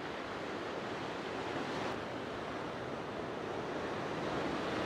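Sea surf breaking and washing in white water around shoreline rocks: a steady rushing wash.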